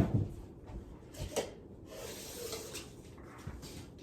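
Faint handling and rubbing noises with a few small knocks and clicks, the clearest a little over a second in.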